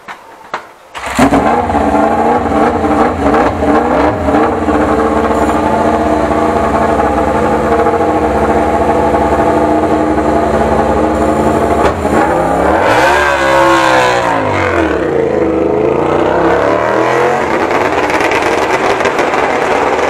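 Yamaha YZR-M1 MotoGP bike's crossplane inline-four engine firing up about a second in and running at a steady, fast idle. Its revs then climb, drop and climb again a little over halfway through before settling.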